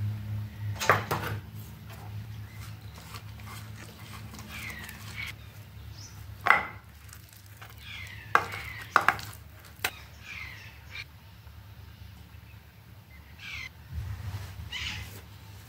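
Birds chirping outside in short, curved calls every second or two, over a few sharp knocks and clinks from a steel bowl handled on a wooden worktop, the loudest about six and nine seconds in. A low steady hum sits underneath at the start and again near the end.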